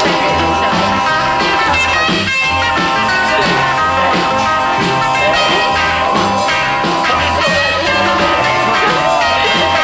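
Rock song with singing, guitar and a steady beat.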